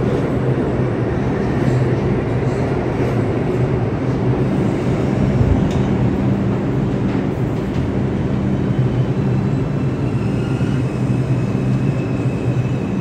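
Kawasaki R142A subway train running out along the rails into the tunnel: a steady rumble of steel wheels and running gear with a low hum. A faint high whine comes in near the end.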